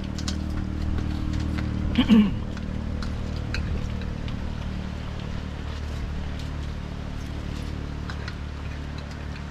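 An engine running steadily with a low, even hum. About two seconds in, a short, loud call with a bending pitch sounds over it.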